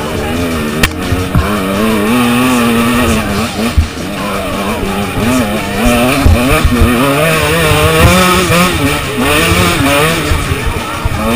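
Two-stroke 125 cc enduro bike engine (KTM 125 EXC) running hard on a rough track, its pitch rising and falling over and over as the rider works the throttle and gears. Scattered knocks from the bike going over rocks come through underneath.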